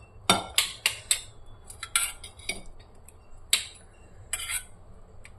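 Steel spoon clinking against stainless-steel bowls and a plate while curd is spooned out: about ten sharp, irregular clinks with a short metallic ring.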